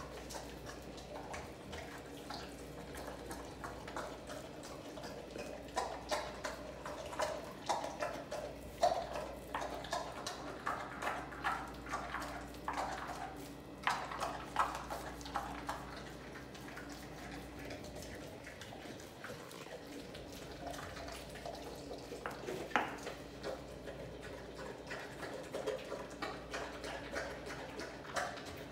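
An American bully chewing and gnawing a large raw turkey leg: irregular wet smacking and chewing noises, easing off for a few seconds in the middle before picking up again.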